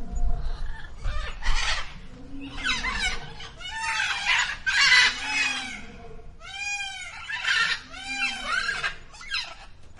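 Birds calling: harsh, raspy squawks followed, from about six and a half seconds in, by a quick series of short, arched, pitched calls.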